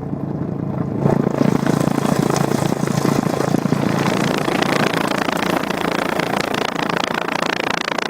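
Car exhaust running with water inside the pipe, a rapid gurgling sputter like boiling water; it gets louder about a second in.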